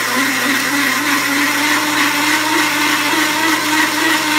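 A large hole saw in a drill press at its slowest speed cutting through quarter-inch steel plate under light pressure. The teeth grind steadily, with a high ringing tone over a lower, wavering drone.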